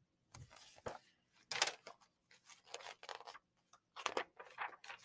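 Paper rustling and scraping as a picture book is handled and its page turned: a string of short, irregular rustles.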